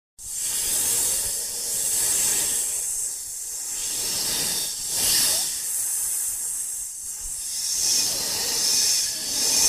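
Snake hissing: several long, airy hisses that swell and fade one after another.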